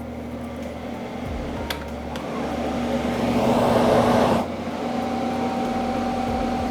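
B-Air VP-33 air mover's 1/3 HP blower motor running and being shown on its two speeds: a steady fan hum that swells louder over a couple of seconds, then drops suddenly a little over four seconds in to a lower steady hum.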